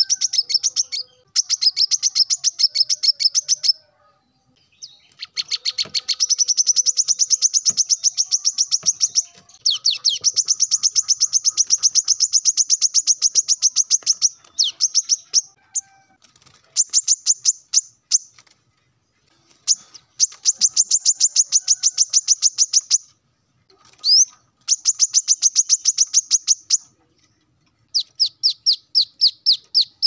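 Male brown-throated sunbird singing in full voice, the territorial song of a male calling out to a rival. Long runs of rapid, high chirping notes come in phrases of one to four seconds with short pauses between them. Near the end a slower string of separate, falling notes follows.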